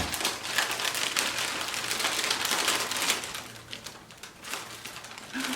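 Wrapping paper crinkling and rustling as a monkey pulls at a loosely wrapped gift: dense crackling for about three seconds, then quieter.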